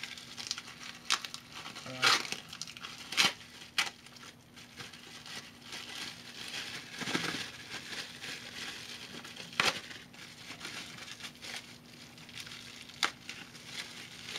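Plastic bubble wrap crinkling and crackling as it is pulled off a small metal part by hand, with a few sharper snaps.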